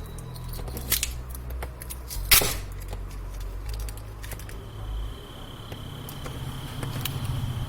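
Sharp clicks and snaps from hands and tools working on a phone's plastic parts during disassembly, the loudest about two seconds in, over a low hum. A faint steady high whine comes in about halfway.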